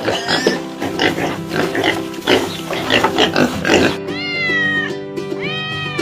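Domestic cat meowing over background music: short choppy sounds at first, then two long meows that rise and fall in pitch about four and five seconds in.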